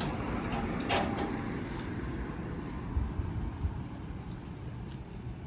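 A sharp click about a second in, then a few soft knocks a couple of seconds later, over a steady background hiss: hands handling small objects.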